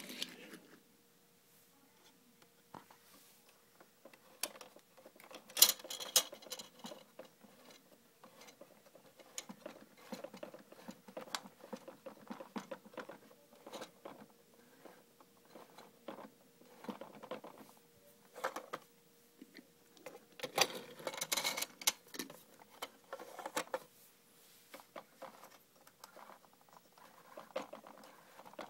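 Die-cast toy cars and a plastic toy car-wash playset being handled: irregular small clicks, taps, scrapes and rattles of metal and plastic, with louder bursts of clattering about six seconds in and again about twenty-one seconds in.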